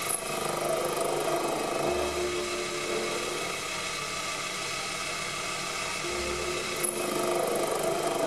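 Proxxon PD 250/e mini lathe running under power while a cutting tool turns down the spigot of a hardened steel gear: a steady machine hum with cutting noise. There are two brief sharp ticks, one just after the start and one near the end.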